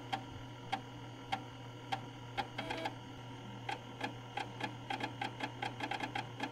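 Floppy disk drive reading during a DOS installation: the drive motor hums steadily while the head steps with sharp clicks, about two a second at first, then faster and closer together from about four seconds in.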